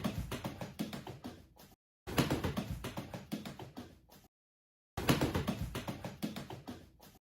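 A duck's webbed feet slapping rapidly on ceramic tiles, a quick run of light taps. It comes in three runs, each starting loud and fading, broken off by short gaps of dead silence.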